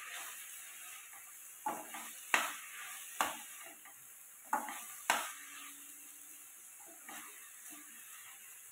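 Metal spatula stirring and scraping chopped onions and tomatoes sautéing in a steel kadai, over a faint sizzle. Several sharp knocks of the spatula against the pan come at irregular intervals.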